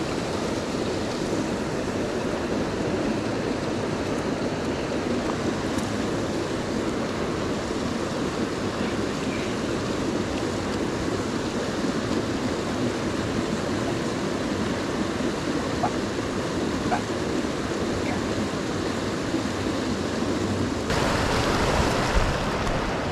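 Stream water running over stones, a steady rush. Near the end it turns louder and brighter.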